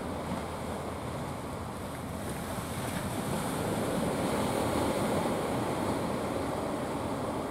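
Ocean surf washing and breaking, swelling louder about halfway through.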